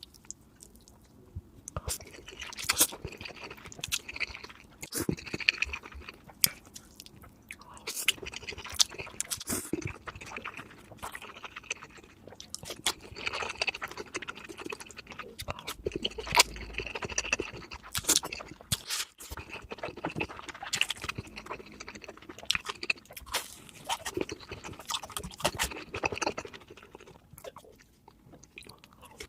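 Close-miked chewing and crunching of crispy fried food, with many sharp, irregular crunches and quieter gaps shortly after the start and near the end.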